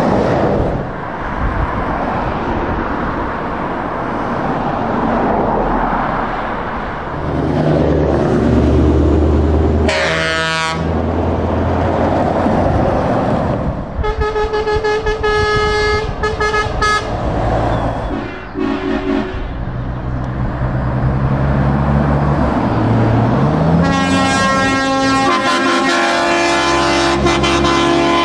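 Heavy truck tractor units driving past one after another with their diesel engines running, and drivers sounding air horns. A rising horn note sounds about ten seconds in, then a run of short toots a few seconds later, and a long multi-note blast near the end. An engine note rises as one truck pulls away.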